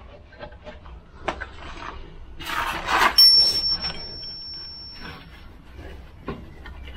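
Volvo 940 rear brake caliper being worked off the disc by hand after its two mounting bolts are out: scattered metal clicks and clanks, a scraping rush about two and a half seconds in, then a high ringing tone that sets in sharply and fades out over about two seconds.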